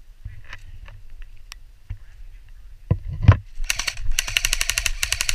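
Scattered clicks and two heavy thumps, then about two-thirds of the way in an airsoft gun opens up on full auto: a rapid, even string of sharp cracks that keeps going.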